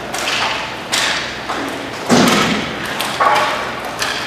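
Roller hockey play: several sharp knocks of sticks and puck striking about a second apart, echoing in the large rink hall.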